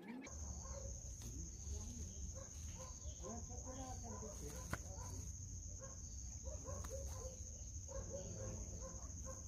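Chickens clucking in the background, short repeated calls over a steady high-pitched whine and a low rumble.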